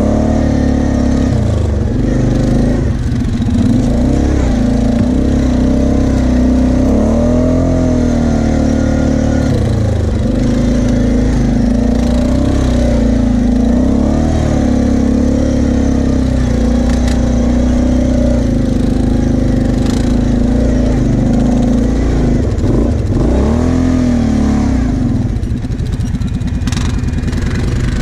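Kawasaki KFX 700 V-Force quad's V-twin engine running under load, its revs rising and falling over and over with the throttle as it rides through sand.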